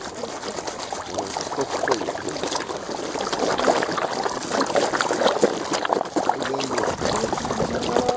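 Many koi gulping at the water's surface with open mouths: a dense, continuous, irregular wet smacking and splashing of countless small gulps.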